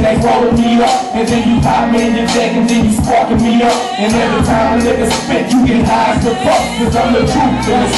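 Loud hip-hop beat with a heavy bass line and vocals over it.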